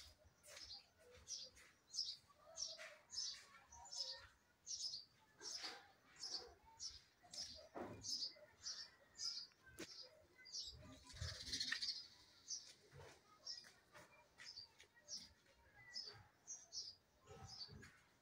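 Bird chirping repeatedly: short, high chirps about two to three a second, with a louder, noisier burst about eleven seconds in.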